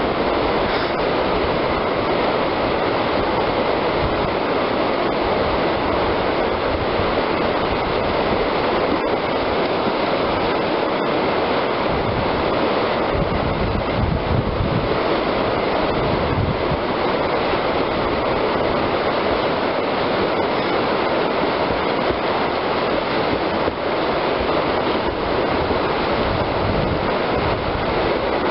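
Whitewater rapids rushing steadily, an unbroken wash of churning river water.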